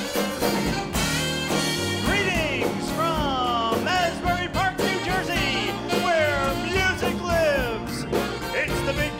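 Upbeat band music with singing, the show's opening theme.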